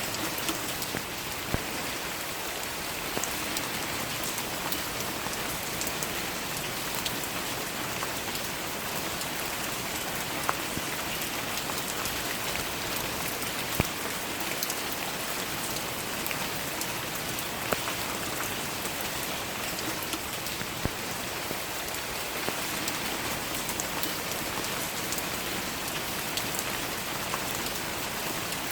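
Steady rain falling, an even hiss, with a few sharper single drops striking every few seconds.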